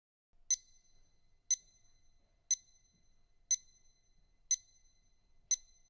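Clock-like ticking sound effect: six short, bright ticks evenly spaced one second apart, each with a brief ring.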